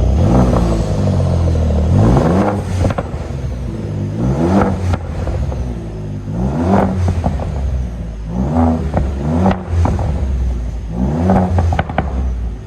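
Ford Raptor's twin-turbo V6 running through a newly fitted Roush exhaust, idling and revved in about six short throttle blips, each rising and falling back to idle.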